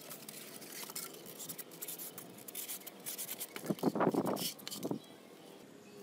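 Polystyrene foam sheet being cut and worked free by hand: scratchy crackles and scrapes, with a louder squeaky rubbing of foam about four seconds in.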